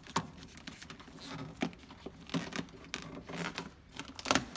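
Factory plastic moisture-barrier sheet being peeled off a car door's inner panel: crinkling plastic with several short tearing crackles, the loudest near the end.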